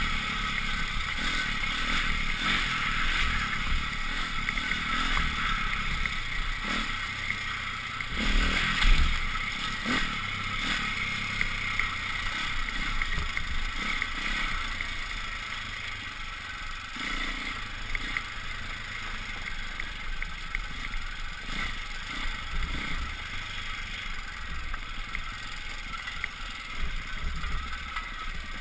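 Off-road motorcycle ridden along a rough gravel track: engine running under a steady rush of wind on the bike-mounted camera, with rattling and knocks from the bumpy ground and a louder jolt about nine seconds in.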